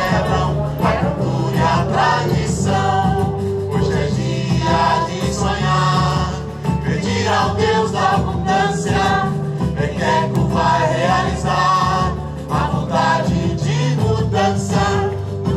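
Music: several voices singing together in chorus over instruments, with steady low bass notes under the melody.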